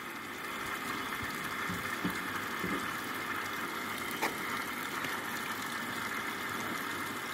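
Steady hiss and hum of a running pump, the suction for the Büchner funnel filtration, with one light click about four seconds in.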